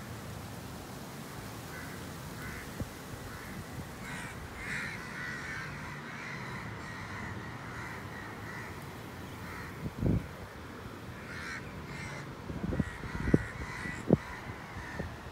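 Harsh animal calls in repeated bouts, starting a few seconds in and returning later, with several sharp thumps in the second half.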